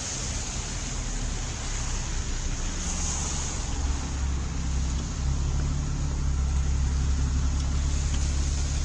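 Road traffic on a wet street: passing cars with tyre hiss and a low rumble that grows louder a few seconds in.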